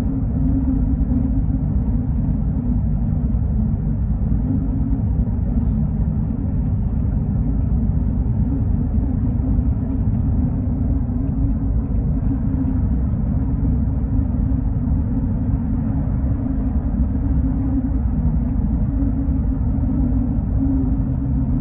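Steady low rumble of a GO Transit bus cruising at highway speed, heard from inside the passenger cabin: engine drone and road noise.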